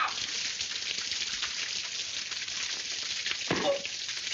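Crackling hiss of an old black-and-white film soundtrack played back, with a short voice sound about three and a half seconds in.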